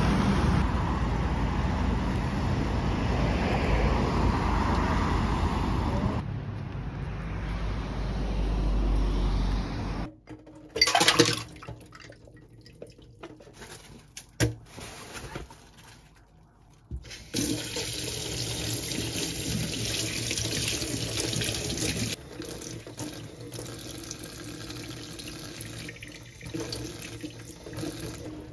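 Street traffic noise with a low rumble, cutting off suddenly about a third of the way in. A few knocks and handling sounds at a stainless steel kitchen sink follow. Then, past the halfway point, a tap runs steadily into the sink, splashing over a soaked paper bag.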